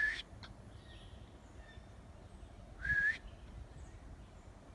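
Two short whistles about three seconds apart, each a quick upward slide settling on one held note, the second copying the first. The hiker takes the second for something in the woods mimicking his own whistle.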